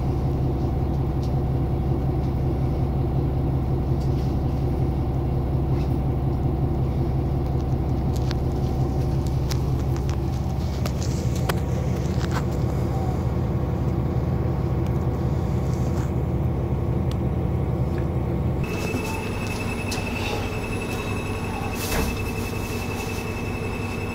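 Diesel engine of a KiHa 261 series railcar idling steadily while the train stands. About 19 seconds in the sound changes, with a steady high tone joining the idle, and there is a single thump near the end.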